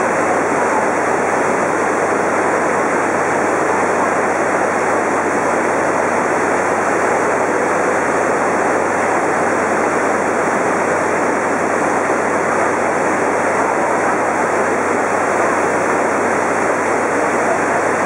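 Maria Cristina Falls, a large twin-stream waterfall, pouring into its misty plunge pool: a steady rushing of falling water that holds the same level throughout.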